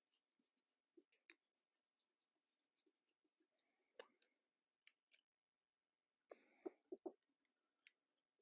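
Near silence broken by a few faint clicks and light taps of small metal carburetor parts being handled as the throttle cable is unhooked and the carb lifted free, with a short cluster of clicks about six to seven seconds in.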